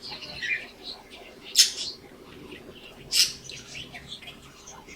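Budgerigars chattering: a run of quick high chirps and warbles, with two louder, sharper chirps about a second and a half apart.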